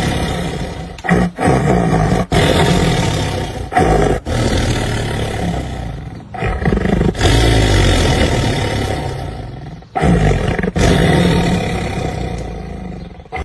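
A domestic cat snoring loudly: a rough rumble, breath after breath, that sounds like a lion's roar. It comes in stretches of one to three seconds with short breaks between.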